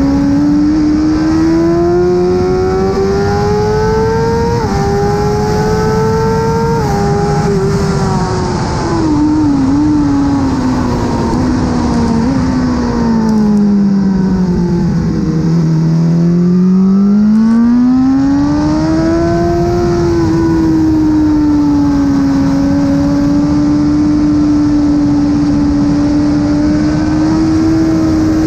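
2017 BMW S1000RR inline-four sportbike engine through an Akrapovic exhaust at track pace. Revs climb with two quick upshifts in the first seven seconds, fall steadily to their lowest about halfway through, climb again, and then hold nearly level to the end.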